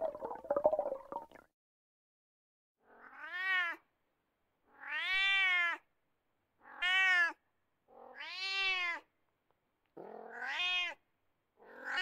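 An animal calling six times, each call under a second long and rising then falling in pitch, with pauses of about a second between calls.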